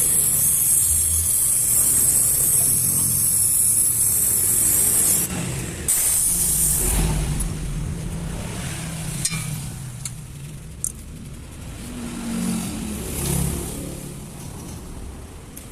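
Loud hiss of compressed gas blowing out through refrigerator tubing while the system is flushed. It cuts off suddenly about five seconds in, comes back in one short blast about a second later, then gives way to a low rumble with a couple of sharp clicks.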